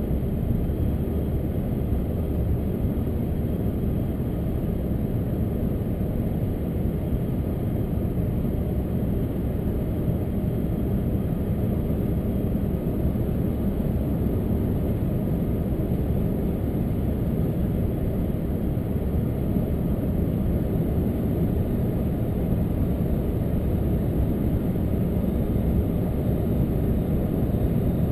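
Steady low rumble of road and engine noise inside a Hyundai sedan's cabin as it drives along a highway.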